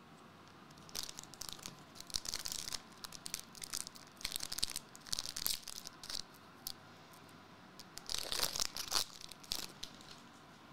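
Foil trading-card booster pack wrapper crinkling and tearing as it is handled and opened: irregular crackles through most of the first seven seconds, then a louder burst of crinkling about eight to nine seconds in.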